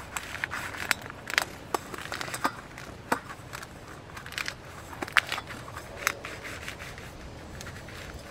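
Cracked roasted coffee beans being worked by hand in a metal frying pan: scattered small crunches and clicks of bean pieces against the metal, irregular throughout.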